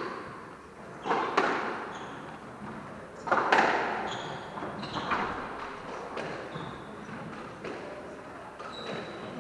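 Squash rally: the ball is struck by rackets and smacks off the court walls every second or two, with short high squeaks of court shoes on the wooden floor in between, echoing in the enclosed court.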